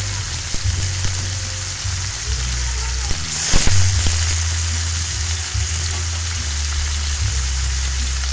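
Chicken pieces sizzling in a steel wok over medium heat, over a steady low hum. About three and a half seconds in the sizzle swells briefly louder.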